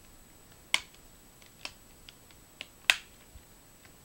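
Plastic screen bezel of an Asus Eee PC 1005HA netbook clicking as its clips snap into place under finger pressure: about four sharp clicks, the loudest about three seconds in.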